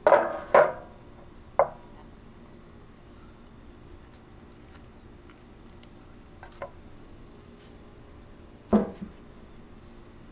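Wooden cutting board and kitchen knife knocking against a flat-top griddle: two sharp knocks at the start, another a second later, a couple of faint clicks midway and one more loud knock near the end.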